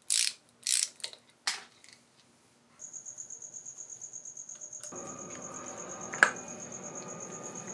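A few short scraping strokes as metal parts are handled, then, from about three seconds in, a cricket chirping steadily in a fast, even pulse of about seven chirps a second, with one sharp click a little after six seconds.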